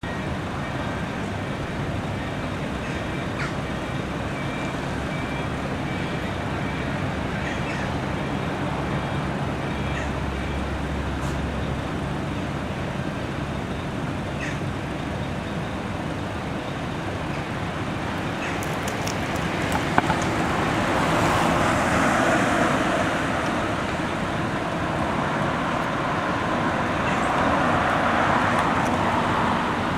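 Heavy vehicles, likely fire trucks, driving past with engines running over steady road-traffic noise, and no siren. The sound swells louder about two-thirds through and again near the end, with a short sharp knock around the first swell.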